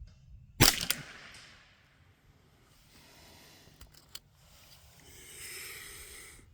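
A single shot from a CZ 512 semi-automatic .22 LR rifle about half a second in, a sharp crack with a short echo trailing off. Two faint clicks follow a few seconds later.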